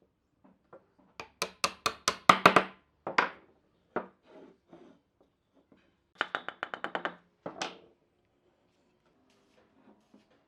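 A series of sharp knocks on wood in two bursts: about seven hard strikes, then a quicker run of about eight lighter knocks and one more.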